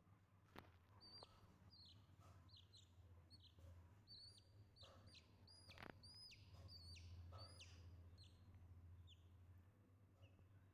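Faint, repeated high peeping from a young chicken chick, short calls that dip in pitch, about two a second. A couple of sharp clicks are also heard.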